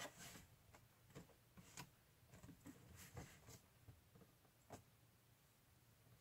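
Near silence with a few faint, scattered taps and clicks: fingers handling and prying at the little doors of a cardboard advent calendar.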